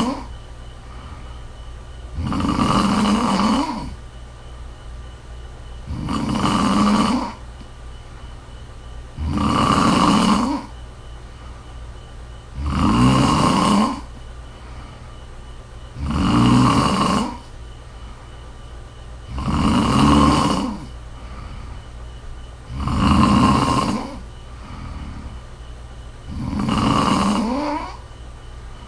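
A woman snoring in a steady rhythm, one snore about every three and a half seconds, each lasting a little over a second, over a steady low hum.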